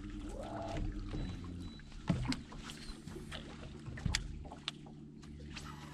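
A boat motor running low and steady, its pitch stepping down slightly about two seconds in, with many small clicks and light knocks over it.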